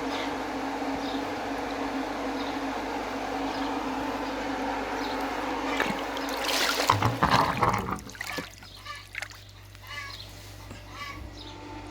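Water running steadily with a low hum from a DIY pool-vacuum setup, then loud splashing and sloshing for about a second and a half, after which the water sound stops.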